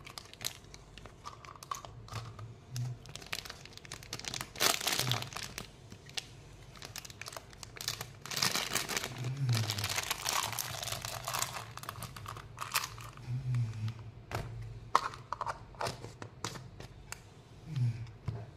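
Plastic candy wrappers crinkling and tearing as they are opened by hand, in uneven bursts of crackle and clicks, busiest from about eight to twelve seconds in.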